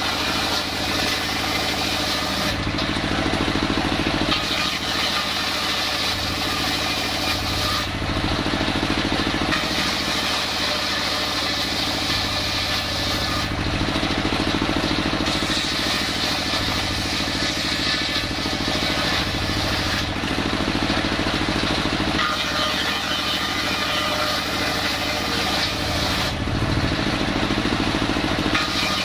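Engine-driven circular saw on a sawmill table ripping wooden planks: about five cuts of a few seconds each, with short pauses between them where only the engine and the spinning blade run. The engine runs steadily throughout.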